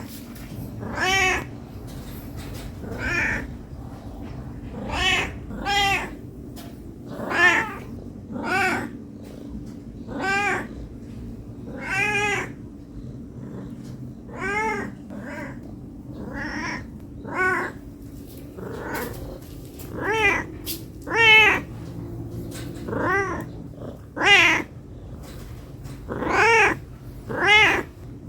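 A domestic cat meowing over and over, about twenty short, arching calls, one every second or so, as when begging for food.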